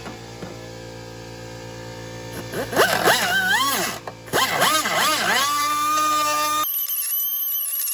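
Pneumatic die grinder grinding the edge of a hole cut in sheet-metal firewall. Its whine swoops up and down several times as the trigger is feathered and the bit bites, then settles into a steady high whine from about six seconds in. Background music plays underneath.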